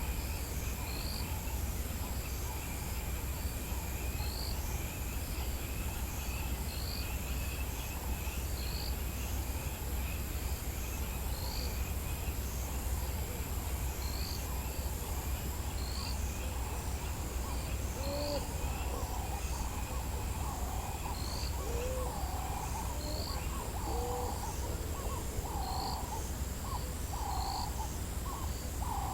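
Dawn chorus in the African bush. Insects trill steadily, with one high note stopping about halfway through, while a bird repeats a short high chirp about once a second. From about two-thirds of the way in, a series of hooting calls comes roughly once a second over a steady low rumble.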